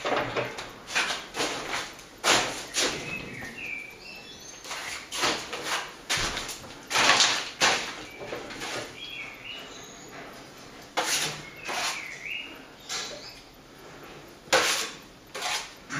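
A plasterer's hand tool spreading cornice cement onto a plaster ceiling panel: irregular scraping and scooping strokes with short knocks, some close together and some a second or more apart.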